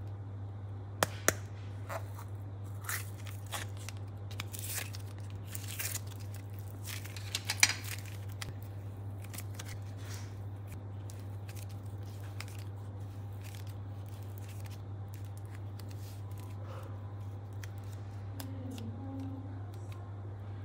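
Hollow plastic toy ball clicking sharply as it is snapped open, followed by a string of plastic clicks and crackling scrapes with one loud snap about halfway, then soft faint squishing of modelling clay handled and squeezed by hand.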